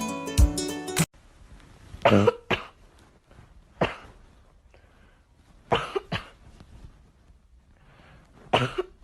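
Guitar music cuts off about a second in. Then comes a series of short, sharp coughs, about seven of them, several in quick pairs.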